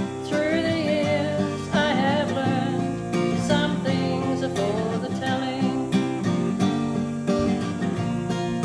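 A woman singing over a strummed steel-string acoustic guitar. Her sung lines, with wavering held notes, run from just after the start to about two thirds through; the guitar strumming continues alone near the end.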